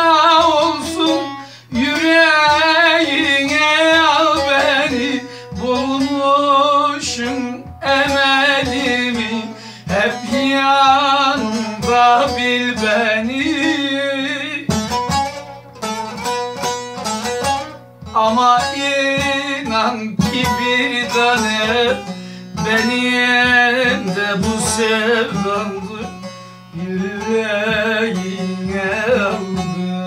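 Bağlama (long-necked Turkish saz) strummed over a steady low drone, with a man singing a wavering, ornamented folk melody over it in phrases separated by short breaths.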